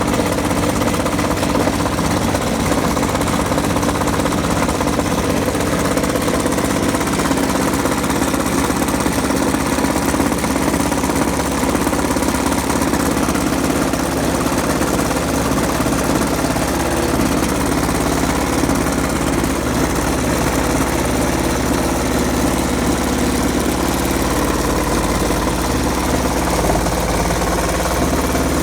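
Washing machine running and shaking violently, a fast, steady rattling and hammering over a low hum. The machine still 'flies' with new shock absorbers and a new heating element fitted, so the fault lies elsewhere.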